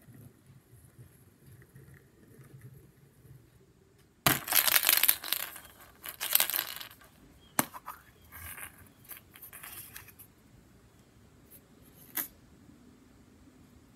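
Hollow plastic surprise eggs being handled in a plastic bucket: loud clattering and rustling starting about four seconds in, broken by sharp plastic clicks as an egg is pried open.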